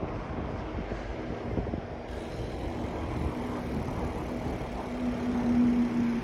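Riding noise while cycling on an asphalt path: wind on the microphone and tyre rumble, with a steady hum that comes in about halfway through and is loudest near the end.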